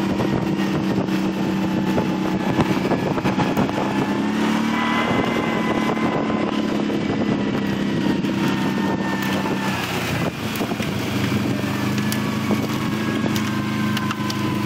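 Motor vehicle engine running at a steady pitch while driving, with occasional light rattles or knocks.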